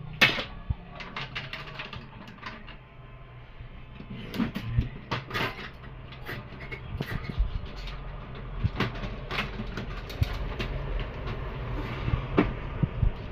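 Plastic parts of a laser printer clicking and knocking as its casing and paper pickup assembly are pried loose by hand, a scatter of sharp clicks at irregular intervals.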